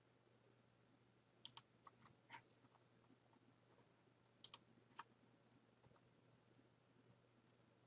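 Near silence broken by a few faint computer mouse clicks, two of them quick double-clicks, over a faint tick about once a second.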